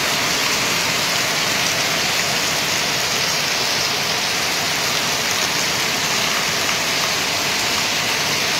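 Heavy rain falling steadily: a dense, even hiss of downpour.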